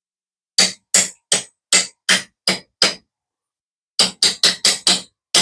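Small hammer tapping a roll pin punch to drive the trigger pin through an AR-15 lower receiver, seating the trigger. About seven even taps, a pause of about a second, then a quicker run of taps.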